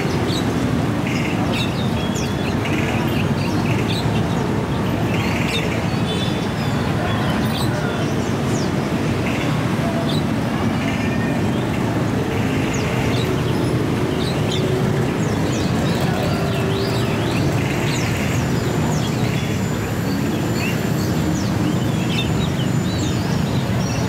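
Many caged birds for sale chirping and calling, short high notes scattered throughout over steady traffic noise.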